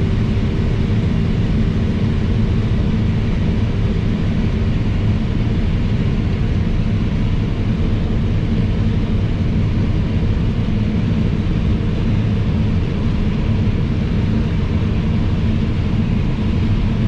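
New Holland CR 9.90 combine running while harvesting corn: a steady, even low drone of its engine and threshing machinery, heard from inside the cab.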